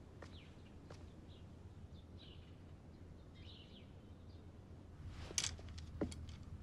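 Faint birds chirping in short, scattered calls over a quiet outdoor background hum. About five seconds in, a few sharp wooden knocks and clatters take over.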